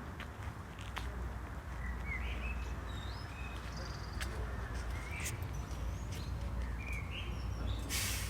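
Small birds chirping now and then over a steady low rumble, with a few faint clicks and a brief hiss near the end.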